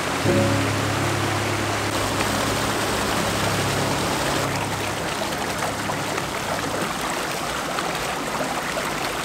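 Mountain creek rushing over granite boulders, a steady hiss and splash of running water.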